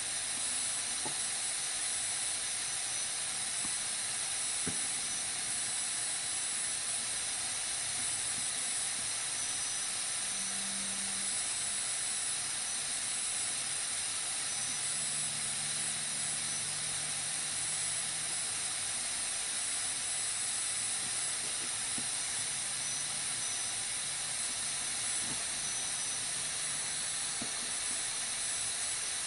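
Steady hiss of radio static from a receiver carrying no programme, with a few faint low hums coming and going.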